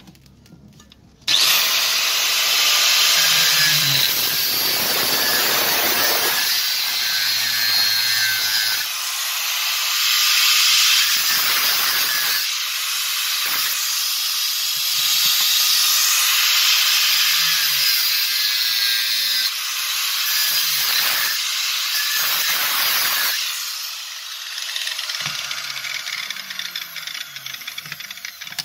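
Angle grinder with a cut-off disc starting up about a second in and cutting into the rusted steel chuck of an electric drill, with a harsh, hissing grinding noise. The noise dips briefly several times as the disc is eased off and pressed back in, and turns lighter and choppier near the end.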